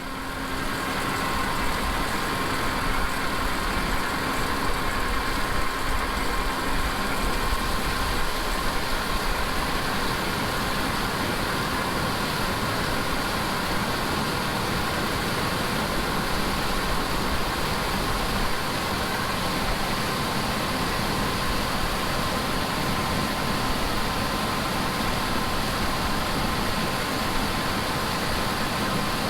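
Engine running steadily at a constant speed, with a thin steady whine above its noise.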